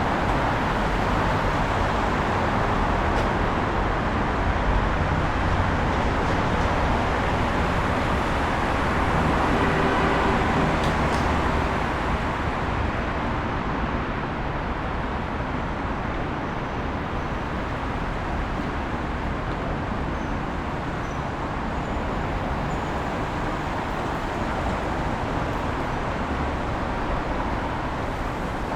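Road traffic noise: a steady rush of passing vehicles, a little louder for the first twelve seconds or so, then easing slightly.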